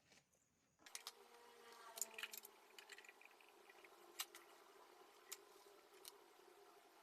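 A small motor starts about a second in and runs with a steady, high-pitched whine, with a few sharp clicks over it.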